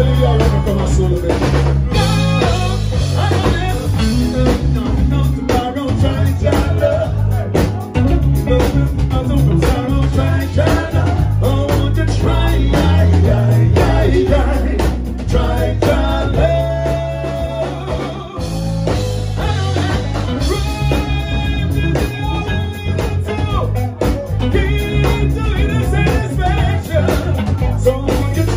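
Live reggae band playing on electric guitars, electric bass and drum kit over a steady beat, with a man singing lead vocals into a microphone.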